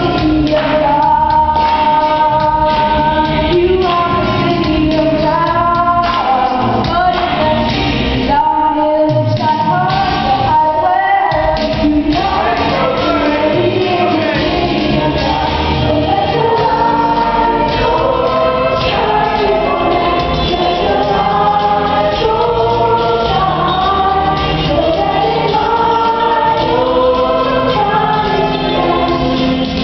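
A children's chorus of many voices singing an upbeat gospel-style song together over instrumental accompaniment with a steady beat.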